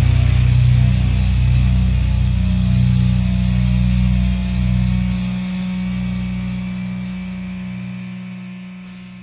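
Grindcore band's distorted electric guitar holding a final chord and letting it ring out. The lowest notes drop away about five seconds in, and the chord fades steadily toward the end.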